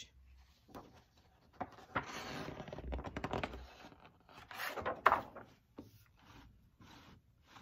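A large paper page of a big book being handled and turned: a long rustle and scrape of paper, then a sharp slap about five seconds in as the page comes down.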